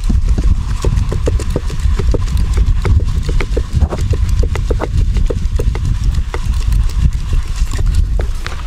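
Hand-shaken wooden-framed sieve sifting crushed groundnuts into a plastic basin: quick, uneven knocks and rattles of the frame and nut pieces, several a second, over a steady low rumble.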